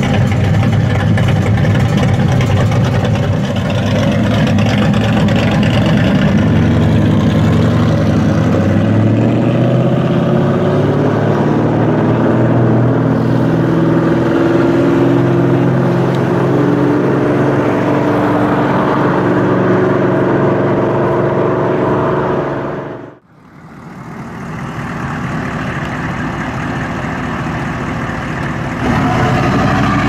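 Ford Mustang Shelby GT350's V8 exhaust running, then pulling away with its pitch rising step by step as it accelerates. The sound dips out briefly about two-thirds of the way through, then another V8 engine is heard running, louder near the end.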